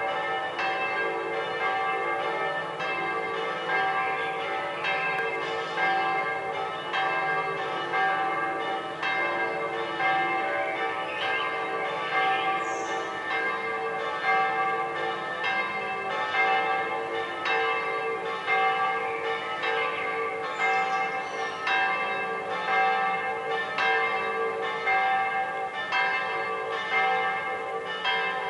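Several church bells pealing together, struck over and over so their ringing tones overlap in a continuous peal.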